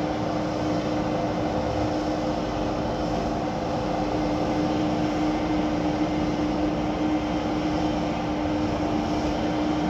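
Heavy road-construction machinery running steadily, its engine a constant drone with a steady hum.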